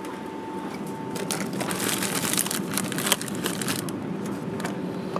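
Plastic snack wrapper crinkling and crackling as it is handled, in quick irregular runs that are densest in the middle of the stretch.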